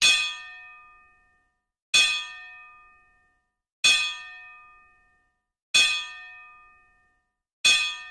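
A metallic, bell-like clang struck five times, about two seconds apart, each strike ringing out with several tones and fading over a second or so, as a title-card sound effect.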